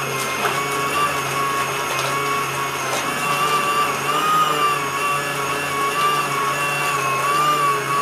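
Portable handheld washing machine's 350-watt motor running steadily, churning clothes in a bucket of water, with a slightly wavering whine.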